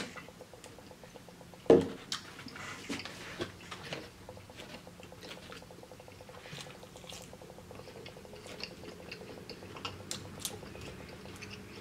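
A person chewing food close to the microphone, with scattered wet mouth clicks and crackles. There is one sharp thump about two seconds in.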